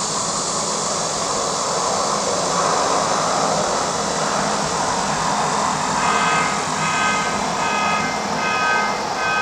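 Steady outdoor rushing noise, with a repeated high beeping pattern, several tones at once, starting about six seconds in at roughly one and a half beeps a second.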